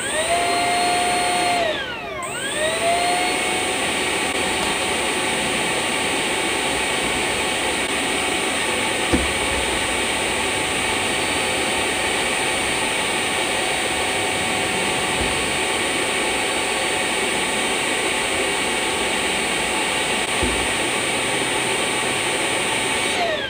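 A 70mm electric ducted fan feeding a valve-less pulse jet spins up to a high whine over a rush of air, dips briefly and recovers about two seconds in, then runs steadily at full speed. A single click sounds about nine seconds in, and the fan starts to spin down right at the end.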